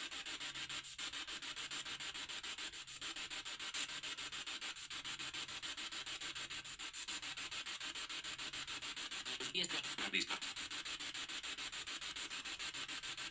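Steady hiss of a boosted, otherwise silent recording, pulsing evenly several times a second. A faint brief sound comes about ten seconds in, which an on-screen caption renders as the words "la misma", offered as a spirit voice.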